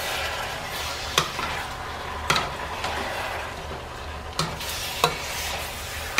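Red silicone spatula stirring bow-tie pasta, chicken and spinach in a cream sauce in a metal pot, over a steady low sizzle from the pan. The spatula knocks against the pot four times.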